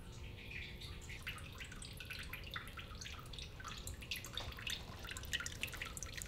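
Small tabletop water fountain trickling, with a quick run of irregular light drips falling onto stones.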